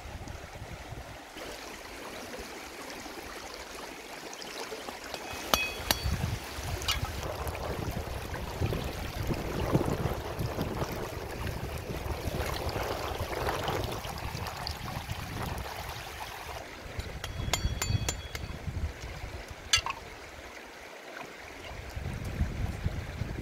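Shallow river water running over stones, with splashing as a catfish is washed by hand in it. A few sharp clicks come about a quarter of the way in and again near the end.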